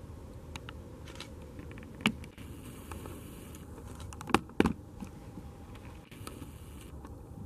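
Handheld camera being moved and handled: a sharp knock about two seconds in and two louder knocks a little after four seconds, with lighter clicks between, over a faint steady background hiss.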